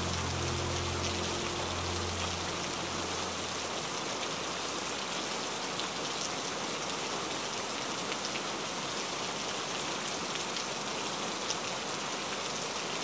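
Steady rain falling and pattering on window glass, with scattered faint drop ticks. Low notes of background music fade out during the first few seconds.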